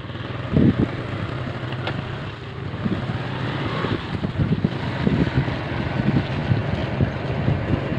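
Motorcycle engine running steadily as the bike rides along, a constant low hum, with irregular wind buffeting on the microphone.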